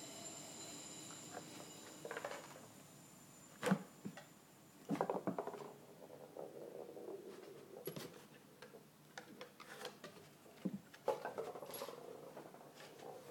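Irregular clicks, taps and scuffles of a Cavalier King Charles Spaniel's claws and paws on a wooden floor as it plays, with small knocks. A loud knock comes a few seconds in, followed by a quick run of clicks.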